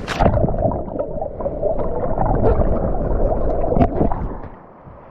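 Loud, muffled gurgling and rushing of seawater, as heard with the microphone submerged in the surf. A few sharp knocks are heard, the strongest near the end, before the sound fades out.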